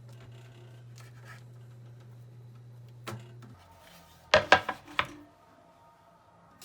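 Light scratching and handling sounds over a low steady hum that stops about halfway. Then a quick run of about four sharp clinks from hard objects knocking together, with a brief ringing after them.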